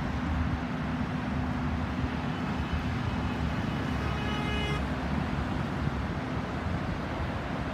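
Steady road traffic noise mixed with wind rumbling on the microphone, with a short high tone lasting under a second about four seconds in.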